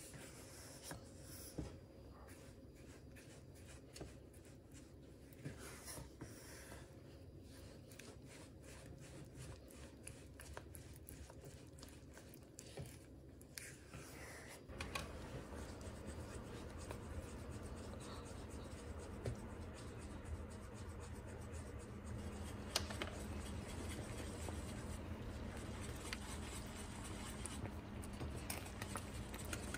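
Silicone spatula scraping and stirring sugar and honey in a nonstick saucepan, with many small scrapes and taps. About halfway in the sound changes to a steady low hiss of the sugar-and-honey syrup boiling, with occasional taps of a spoon in the pot.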